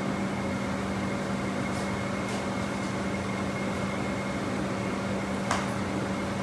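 Steady hum of an air-conditioning fan, with a constant low drone and fainter higher tones over a whooshing noise; a faint click about five and a half seconds in.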